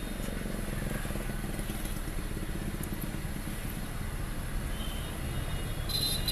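Maruti Suzuki WagonR K-series engine idling steadily on CNG, running smoothly with no misfire or hunting after its wiring fault was repaired. A brief high-pitched tone sounds near the end.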